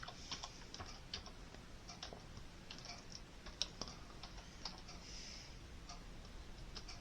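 Keys clicking at an uneven pace, someone typing on a keyboard, with one sharper click about three and a half seconds in.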